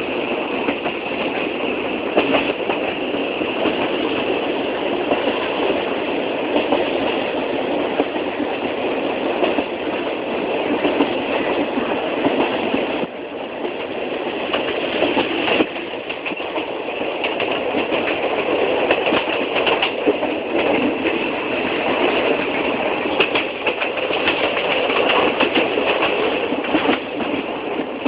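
A train running on the rails: a continuous rumble and rattle, shot through with many small clicks and clatters, with a brief drop in level about halfway through.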